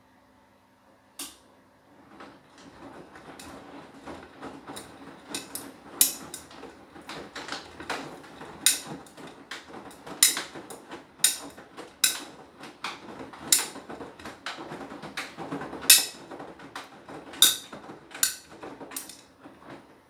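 Beko WTK104121W washing machine drum turning and tumbling the load during its Anti Allergy wash. A steady low hum gives way after about two seconds to a churning rumble, with irregular sharp clacks and knocks about once a second.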